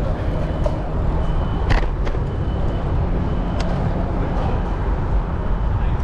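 Steady rumble of wind and rolling noise on a GoPro camera riding along on a moving bicycle. Two sharp clicks stand out, one just under two seconds in and another near four seconds.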